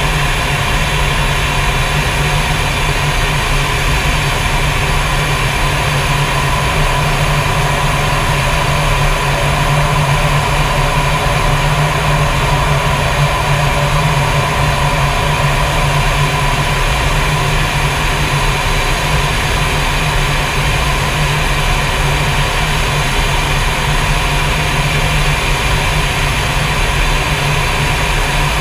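Fighter jet in flight heard from inside the cockpit: steady engine and airflow noise, a constant low hum under an even hiss, unchanging throughout.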